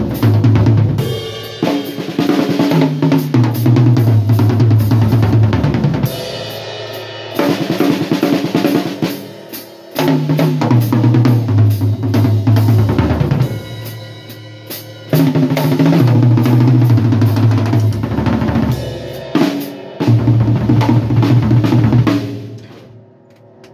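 Drum kit toms played in fast rolls that step down in pitch from the high tom to the floor tom, repeated in several runs with bass drum and snare. The runs break off briefly between passes, and the last one dies away near the end.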